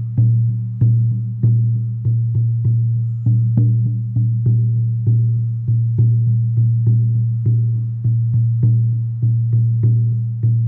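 A 16-inch deerskin frame drum on an ash frame, struck with a soft beater in a steady beat of about two to three strokes a second. Each stroke rings on into the next as a deep, sustained boom; the skin is freshly tuned to its highest pitch.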